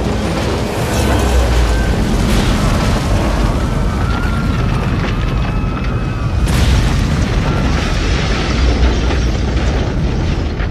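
Earthquake sound effects: a continuous deep rumble of shaking ground and collapsing masonry, with a sudden loud crash about six and a half seconds in.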